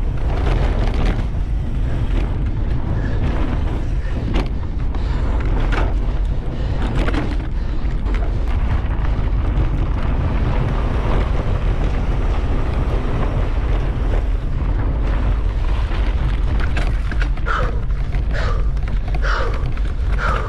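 Wind buffeting the camera microphone as a mountain bike is ridden fast over a dirt track, with knocks and rattles from the bike on rough ground.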